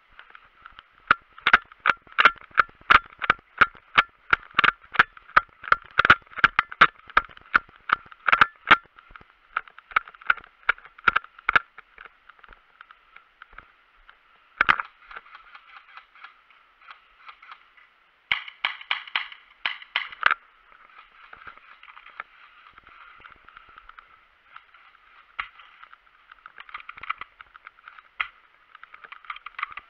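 Footsteps of a person moving quickly with gear knocking: a fast, fairly even run of sharp knocks for about ten seconds, then one loud knock, a short cluster of clicks and a few scattered knocks over a steady muffled hiss.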